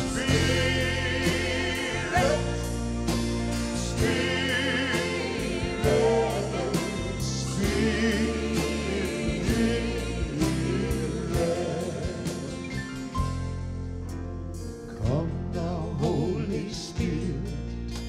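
Live gospel piano and organ playing an instrumental passage, the organ holding low sustained chords under a run of piano notes, with voices holding long wavering notes without words.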